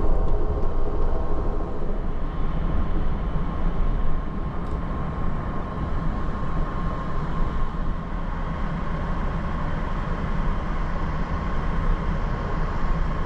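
Steady running noise of an Amtrak passenger car in motion, heard from inside the car: a continuous low rumble of wheels on the rails, with a faint high steady hum over it.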